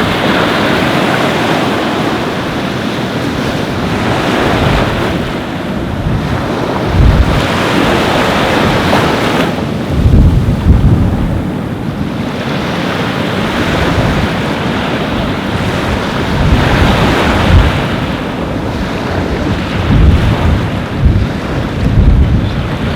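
Ocean surf washing onto a beach, a loud rushing hiss that swells and eases every few seconds. Wind buffets the microphone with low rumbling gusts several times.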